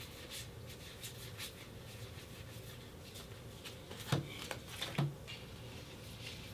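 Yu-Gi-Oh trading cards being handled: faint rustles and light clicks as the cards are sorted through by hand, then two soft taps about four and five seconds in as cards are set down on the table.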